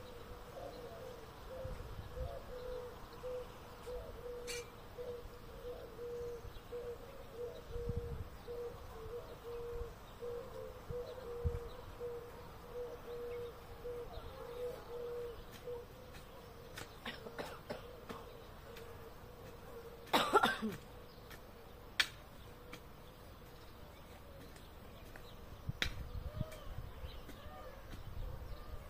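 A flying insect buzzing with a wavering pitch through the first half, then a short loud sound about twenty seconds in and a few light clicks.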